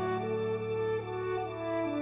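Background music: a slow melody of held notes over a steady low note.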